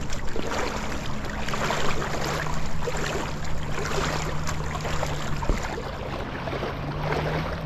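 A person wading through thigh-deep river water, the water sloshing and splashing around the legs with each step. A steady low hum runs underneath.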